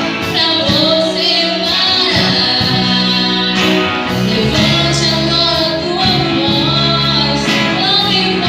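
Worship song: a woman singing a melody over band accompaniment.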